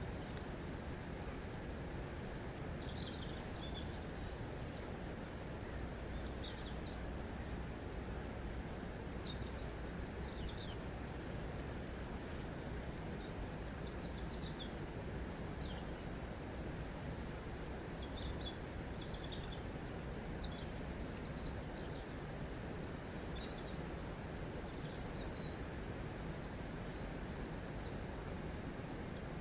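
Steady rush of flowing water, with birds chirping again and again in short, high calls over it.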